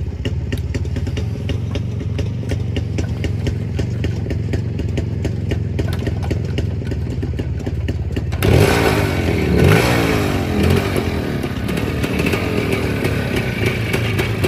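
Motorcycle engine idling steadily with a regular ticking. About eight seconds in, the sound changes abruptly to louder engine revving that rises and falls in pitch.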